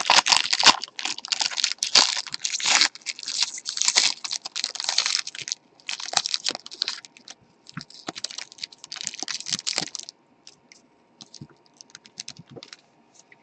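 Trading card pack wrapper being torn open and crinkled, a dense crackling for about ten seconds. After that come a few scattered light clicks as the cards are handled.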